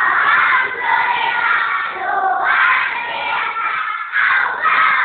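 A class of young children shouting together in chorus, many overlapping voices, with several loud surges.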